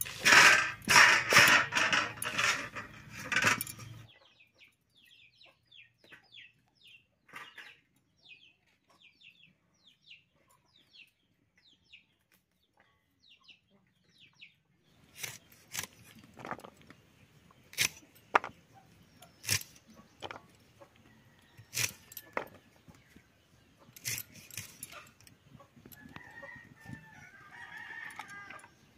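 A boti's curved iron blade cuts through a bottle gourd with a loud crunching scrape for the first few seconds. Faint short bird chirps follow. Then come a series of sharp single snaps as green beans are cut on botis, with chickens clucking near the end.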